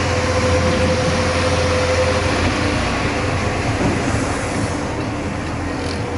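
JCB excavator's diesel engine running steadily with a deep hum and a constant whine, along with mechanical working noise; a brief click near the end.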